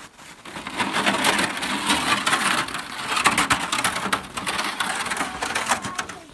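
Footsteps crunching through crusty snow, with a plastic sled scraping along the snow: a steady run of crackling and crunching.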